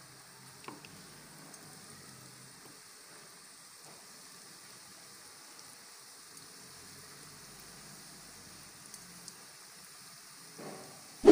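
Flour-coated chicken pieces deep-frying in hot cooking oil in a karahi: a steady, even sizzle with a few light crackles. A sudden loud sound cuts in right at the end.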